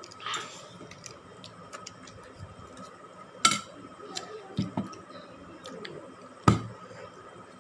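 Metal forks clinking and scraping against steel dinner plates while eating noodles. Two sharp clinks come about three seconds apart, with lighter ticks between them. A short hiss comes just after the start.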